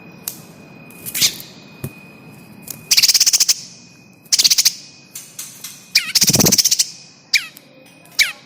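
Prinia (prenjak) distress calls, the 'pinched' prenjak call used as a bird-trapping lure: harsh, rapid chattering bursts of about half a second, broken by short falling notes. A faint steady high tone runs underneath.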